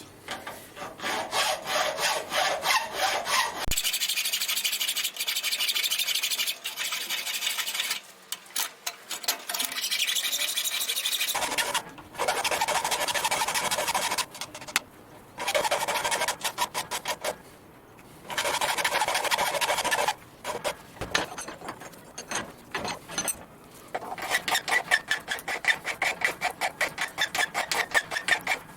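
Hand file rasping over the edge of a steel plate, in several runs of quick back-and-forth strokes broken by short pauses.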